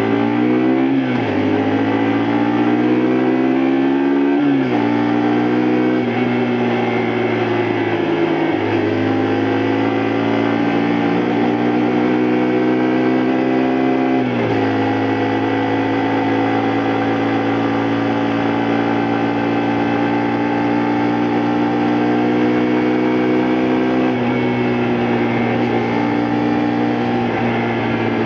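Honda Varadero XL125V's 125 cc V-twin engine accelerating up through the gears. Its pitch climbs and drops sharply four times as it shifts up, then holds a steady cruising note that eases off slightly near the end.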